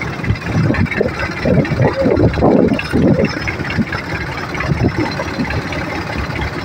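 Engine of a fishing launch running steadily as the boat moves under way.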